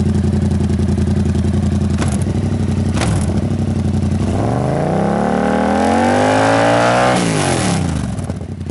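Yamaha MT-07's 689 cc parallel-twin idling through a hand-made stainless steel exhaust, then revved once, its pitch rising smoothly for about three seconds before dropping back to idle.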